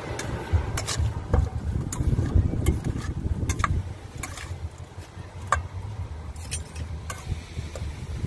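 A metal spoon tossing a wet salad in a stainless steel mixing bowl, with irregular light clinks and scrapes of spoon on bowl. A steady low rumble runs underneath.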